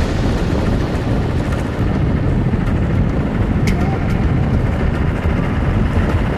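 Trucks driving on a town street: a steady, loud low rumble of engine and road noise.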